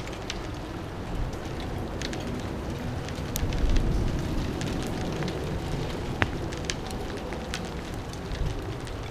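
Wind buffeting with light rain, scattered raindrops ticking over a low rumbling wash of noise.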